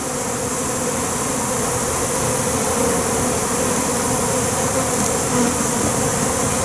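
Many honey bees buzzing steadily around an open hive box and comb.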